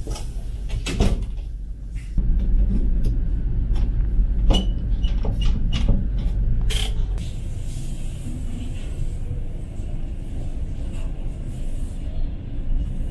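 A round metal door knob turned and a door latch clicking and knocking as the door is opened, a few sharp clicks in the first seven seconds. Under it runs the steady low drone of the ferry's engines.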